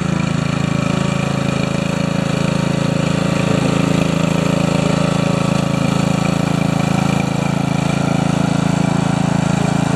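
Kohler Courage 20 hp engine of an Ariens riding lawn tractor running steadily while the tractor is driven across grass.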